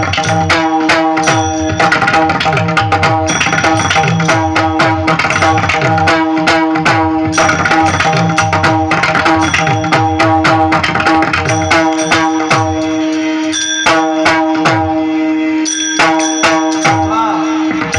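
Instrumental kirtan accompaniment: a harmonium holds steady chords under fast hand-drum playing, with bass strokes that bend up and down in pitch, and ringing cymbal strikes. It is a devotional music interlude between sung lines.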